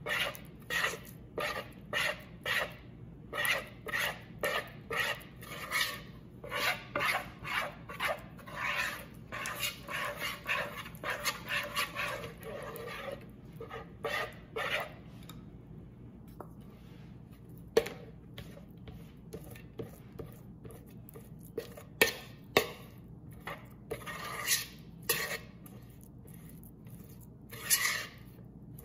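Metal spoon stirring thick cornstarch-and-water oobleck in a mixing bowl, scraping along the bowl in quick rhythmic strokes about two a second. About halfway through it slows to a few sharp clicks of the spoon against the bowl, then a few more scraping strokes near the end.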